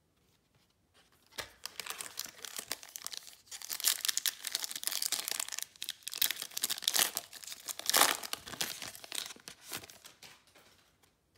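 Foil wrapper of a 2019-20 Prizm Basketball retail pack crinkling and tearing as it is opened by hand: a dense crackle that starts after about a second, with the loudest rip about eight seconds in, then dies away.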